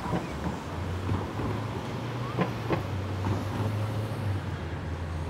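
Steady low hum of a running engine, with scattered short clicks and knocks.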